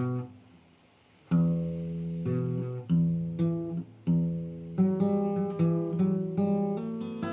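Guitar playing a slow chord progression, each chord struck and left to ring. The strokes come more often in the second half.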